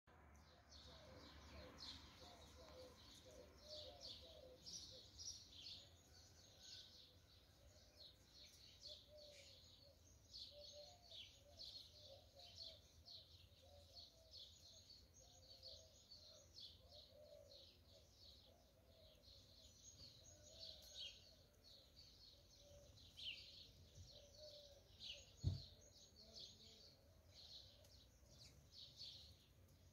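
Faint background birdsong: many short, high chirps repeating irregularly throughout. One brief low thump late on.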